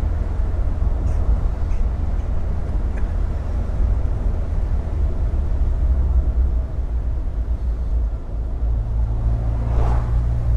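Car engine running steadily while driving with the top down, a low drone under road and wind noise; the engine note settles to a steadier tone near the end.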